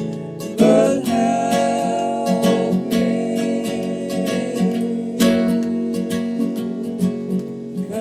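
Acoustic guitar strummed steadily in a live song's instrumental passage.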